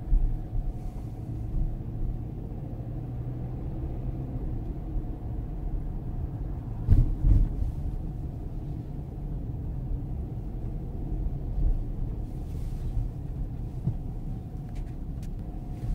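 A car driving through town, heard from inside the cabin as a steady low rumble of road and engine noise. About seven seconds in there is a couple of heavy thumps.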